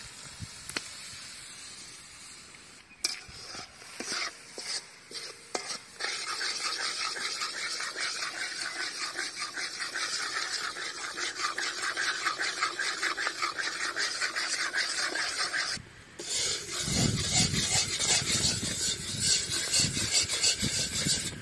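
Metal spatula scraping and stirring in an iron kadai with quick rhythmic strokes, over the sizzle of country sugar melting in water into a boiling syrup. After a short break about 16 seconds in, the stirring goes on heavier.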